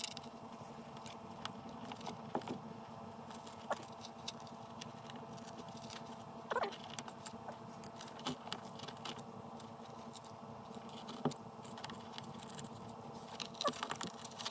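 Scattered small snips and clicks of hand nippers cutting away the car's headliner board around a mounting hole, about half a dozen sharper clicks among lighter ticks, over a faint steady hum.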